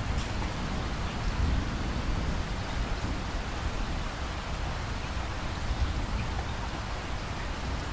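Steady rain falling in a thunderstorm, with a low rumble of thunder underneath that is strongest at the start.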